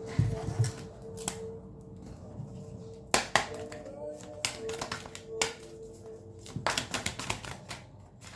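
Irregular sharp clicks and taps from hands handling divination pieces (cards or rune stones) before a card is drawn, over soft background music that holds a steady tone.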